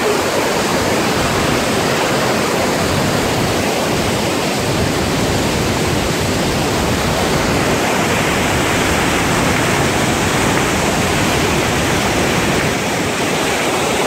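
Large river waterfall rushing steadily, a loud unbroken wash of falling water.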